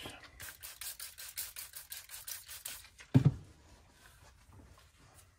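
A quick run of light clicks or rattles on a workbench, about seven a second for some two seconds, as supplies are handled. Then a single thump about three seconds in.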